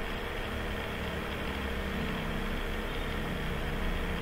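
Steady low rumble and hiss of an idling engine, with faint steady hum tones and no sudden events.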